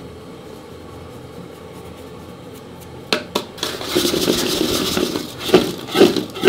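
Small pieces of fuchka dough tossed and shaken in a metal bowl, starting about three seconds in, rattling and scraping against the bowl with rhythmic shakes about twice a second. They are being coated with dry flour and oil so they don't stick together.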